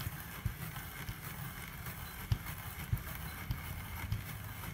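Hand-crank spiralizer turning a zucchini into spirals, with a short dull knock every half second or so as the crank goes round.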